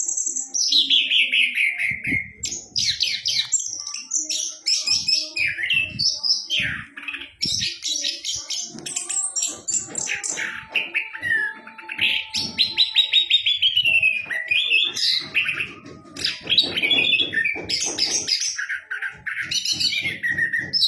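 Chestnut-capped thrush (anis kembang) singing a continuous, varied song of falling whistles and rapid trills.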